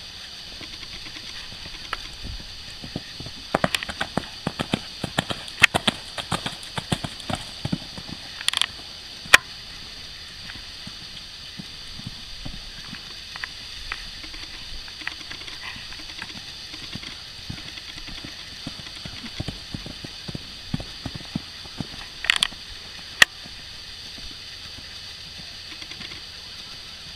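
Cantering horse's hoofbeats on arena sand: irregular thuds and sharp knocks, bunched for several seconds near the start and again about two-thirds of the way through, over a steady hiss.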